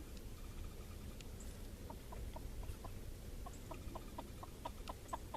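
Chicken clucking: a quick run of short clucks, about five a second, starting about two seconds in.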